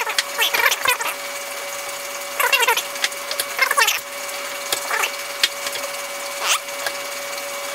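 Dual-barrel hand injector for liquid soft plastic squeaking in short, irregular rising bursts as its plungers are pressed down into an aluminium swimbait mold. Under it runs a steady hum from a laundry machine.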